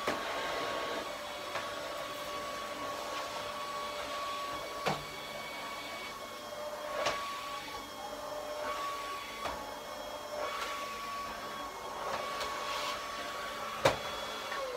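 Canister vacuum cleaner running with a steady high motor whine and rushing air as the nozzle is worked over carpet and sofa, with a few sharp knocks, the loudest near the end. At the very end the motor is switched off and its whine starts to fall in pitch.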